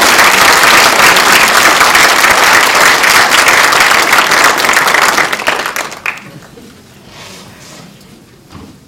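Audience clapping loudly, dying away about six seconds in.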